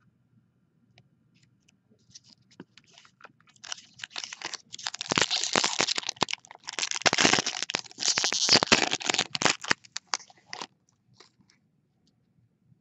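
A foil trading-card pack crinkling and being torn open: a dense run of crackling from about four seconds in to about ten and a half, after a few faint scattered ticks.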